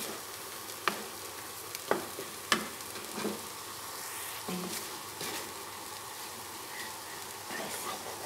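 Ground spice paste with lemongrass and galangal sizzling steadily in a nonstick wok as it is sautéed until cooked through, stirred with a wooden spatula. Sharp scrapes and taps of the spatula against the pan stand out, three within the first few seconds and smaller ones later.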